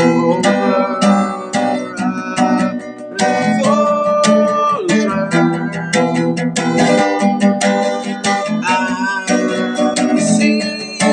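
Acoustic guitar with a capo strummed in chords, with a man singing along in held notes that slide in pitch.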